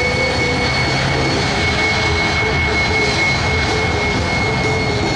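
Lockheed T-33 Shooting Star's Allison J33 turbojet running at taxi power: a steady jet rumble with a high whine held on one pitch.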